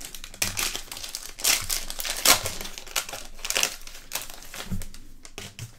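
Foil wrapper of a 2019 Donruss Optic football trading-card pack crinkling as it is pulled open by hand. It makes an irregular crackle that thins out near the end.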